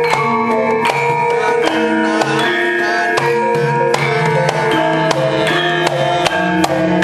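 Javanese gamelan playing fast battle accompaniment: ringing metallophone notes over kendhang hand-drum strokes. Frequent sharp clacks run through it, the puppeteer's keprak and cempala marking the puppets' fight.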